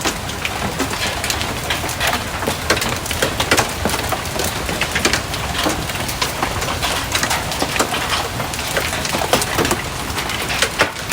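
Golf-ball-sized hail pelting the house and ground, a dense, unbroken clatter of hard impacts, like bullets falling from the sky.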